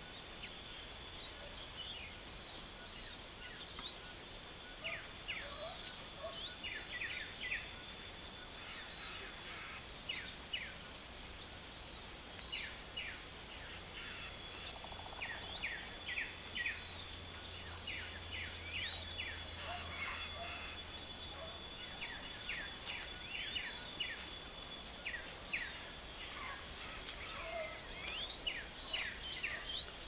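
Small birds chirping and calling over and over in short notes and quick rising or falling whistles, over a steady high insect buzz.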